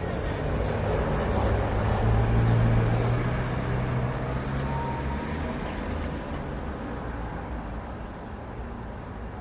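A road vehicle passing by: a low engine hum that swells over the first two or three seconds and then fades away.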